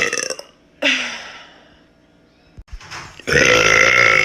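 A woman's deliberate deep burps: the end of one at the start, a short sound falling in pitch about a second in, then a long, loud burp starting about three seconds in.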